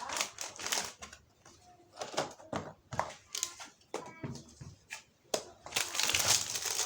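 Packaging being handled during an unboxing: irregular rustling, crinkling and clicks, with a longer stretch of crinkling about six seconds in.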